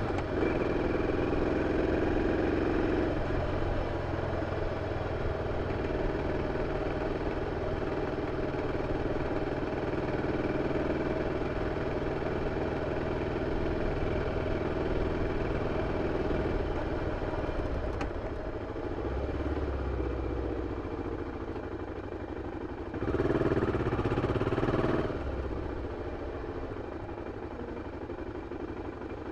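BMW F 650 CS motorcycle's single-cylinder engine running through its original exhaust. It is louder for the first three seconds and again for about two seconds later on, then quieter near the end.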